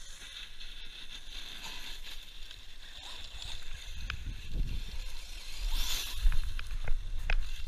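ARRMA Siren 6s BLX brushless 1/10 RC truck driving over loose gravel, with scattered sharp clicks and low rumbling on the microphone from about four seconds in. A louder burst of noise comes about six seconds in.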